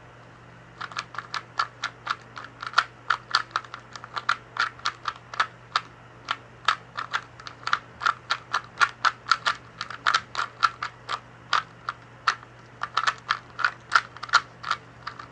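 Plastic 2x2 Rubik's cube being turned fast during a speed solve. The layers click and clack in quick, uneven runs of several turns a second, starting about a second in.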